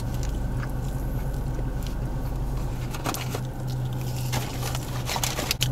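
Steady low hum inside a parked car with its engine running, with a few soft clicks and rustles of food packaging and eating about halfway through and near the end.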